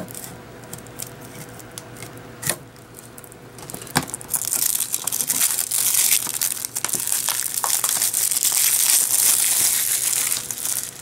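Plastic shrink wrap being picked at and torn off a Blu-ray case. A few small clicks and scratches come first, then from about four seconds in the cellophane crinkles loudly and continuously as it is pulled away and crumpled, easing off near the end.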